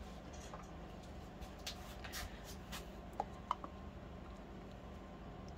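Quiet handling of a plastic bottle: soft taps and rustles, then two small sharp clicks about three seconds in, over a low steady hum.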